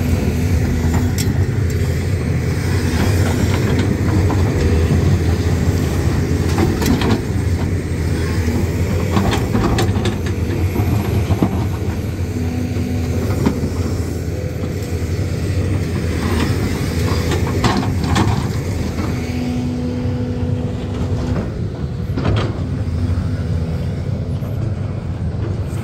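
Heavy excavator's diesel engine running steadily under load during grading work, with occasional sharp metallic clanks.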